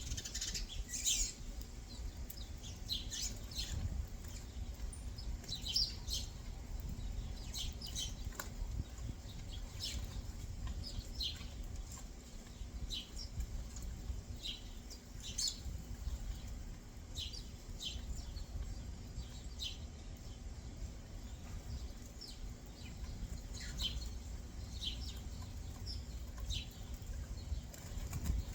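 Backyard songbirds giving short, separate chirps every second or so, over a steady low rumble.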